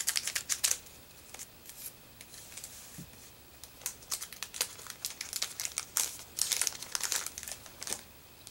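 Foil wrapper of a Pokémon card booster pack crinkling and tearing as it is opened, in irregular bursts of sharp crackles.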